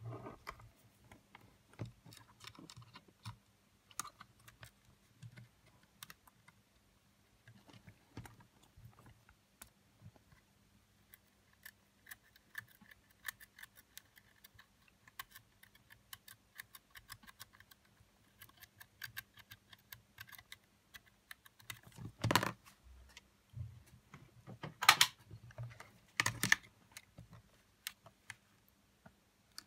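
Small clicks, taps and scrapes of hands and metal tweezers working on the opened case and circuit board of a Sony WM-FX811 cassette Walkman, with three louder knocks in the last third.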